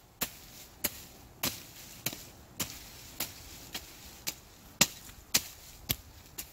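Browning Outdoorsman folding shovel chopping into soil and leaf litter: about a dozen sharp strikes, roughly two a second, the loudest about five seconds in.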